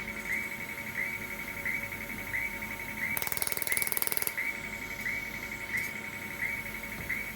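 Pulsed YAG laser welder firing: a short, sharp tick repeats about every 0.7 s. About three seconds in, a rapid buzzing run of pulses lasts just over a second.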